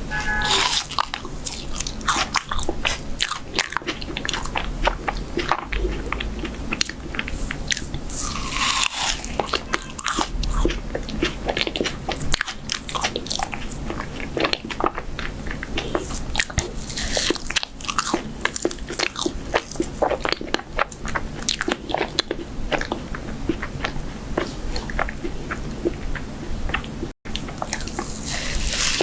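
Close-miked ASMR eating of chocolate cake: a person biting and chewing, with dense, irregular sharp clicky mouth sounds throughout.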